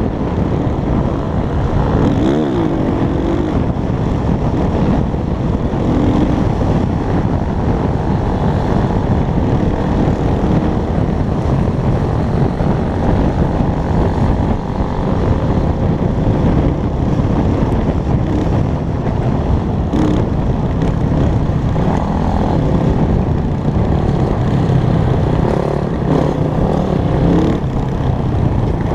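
Dirt bike engines running as the bikes are ridden, a loud, steady, dense engine noise.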